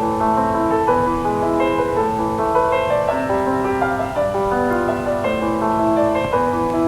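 Background piano music playing a steady melody of short held notes.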